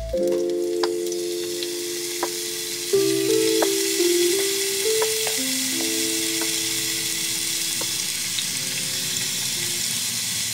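Strips of steak sizzling in an oiled pan with sautéing onions, a steady hiss with scattered sharp crackles. Soft background music with held notes plays underneath.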